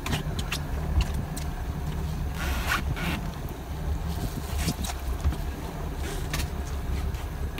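Fishing boat's engine running steadily, a low hum, under wind and water noise, with a few short bursts of noise.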